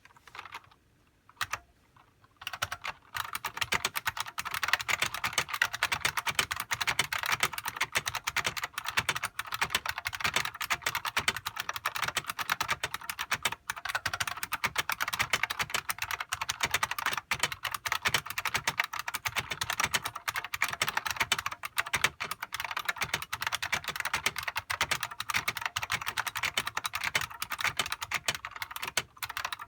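Unicomp Classic buckling-spring keyboard being typed on: a few single key clicks at first, then fast continuous typing, a dense stream of loud spring clicks and key strikes.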